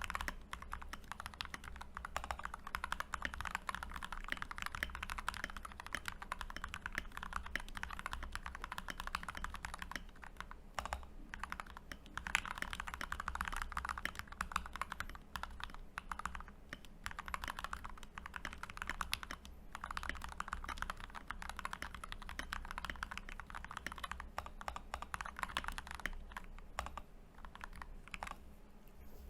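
Typing on a custom mechanical keyboard built on a Glorious GMMK 1 with an integrated aluminium plate and case foam, its Gateron Milky Yellow linear switches lubed with Krytox 205G0 and filmed: a fast, continuous run of key presses with a few brief pauses.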